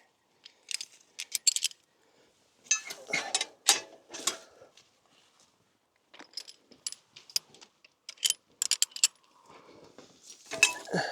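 Metal chains and hooks of work-horse harness clinking and jangling in several short bursts as the traces are hitched on to the plough.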